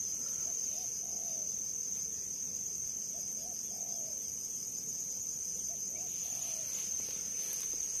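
Insects in the field making a steady high-pitched drone, with faint short chirps repeating irregularly underneath.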